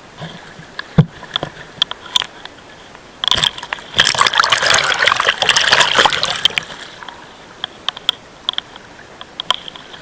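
Water splashing and sloshing in a dense burst through the middle, with scattered sharp knocks and clicks before and after.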